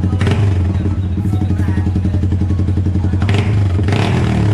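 Yamaha R15 V3 motorcycle's single-cylinder engine idling through an aftermarket exhaust, a loud, steady, pulsing exhaust note. A brief rush of noise joins it about three seconds in.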